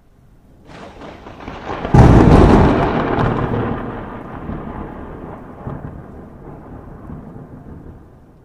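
A rising hiss, then a sudden loud crash about two seconds in and a long rumble that fades away over about six seconds, like a thunderclap: a sound effect laid over the subscribe end screen.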